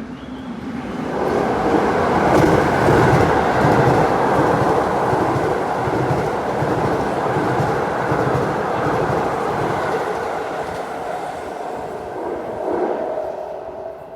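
Seibu 40050-series electric train passing through at speed: a rushing wheel-and-rail noise that builds over about two seconds, stays loud for some ten seconds, then dies away near the end.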